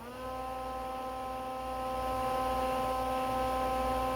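An electric motor switching on, its pitch rising briefly as it spins up, then running with a steady hum.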